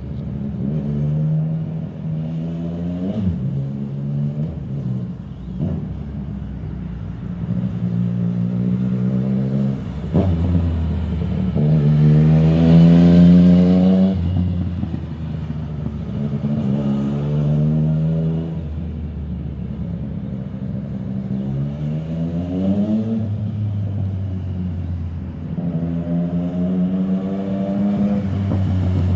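Yamaha MT-09's inline three-cylinder engine through an Akrapovic aftermarket exhaust, revved up and let fall back several times, with a steady lower running note between revs. The biggest and loudest rev comes about halfway through.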